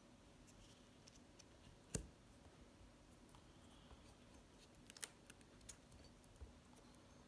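Faint clicks and taps of steel screwdriver bits being touched and handled in a foam-lined bit case: one sharper click about two seconds in, a small cluster of clicks around five seconds, otherwise near silence.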